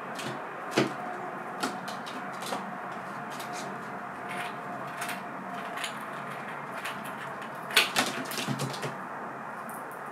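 A Eurasian red squirrel makes scattered light clicks and knocks with its claws as it scrambles on the wooden feeders and the rope-hung coconut-shell feeder. The loudest cluster of knocks comes about eight seconds in, as it gets back down onto the table.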